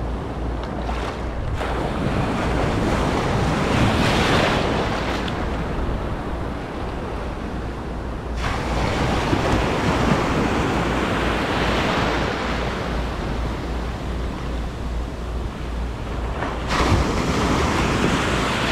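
Rough surf washing around a wader, with wind buffeting the microphone; the wash swells louder three times.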